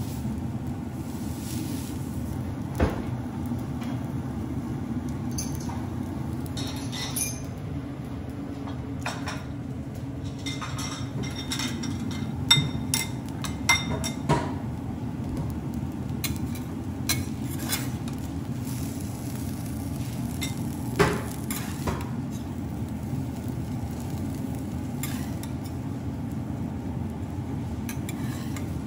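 Clinks, knocks and scrapes of ceramic bowls, spoons and a metal spatula on a steel teppanyaki griddle, over a steady low hum. The loudest knocks come a few seconds in, three close together around the middle, and one about two-thirds through.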